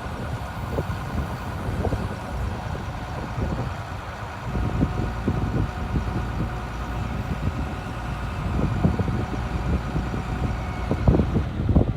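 1996 International 4900 bucket truck's engine idling steadily, with uneven low rumbling surges.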